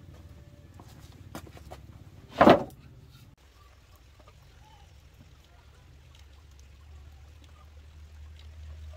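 A single loud, short knock or thump about two and a half seconds in, preceded by a few light clicks, over a steady low rumble.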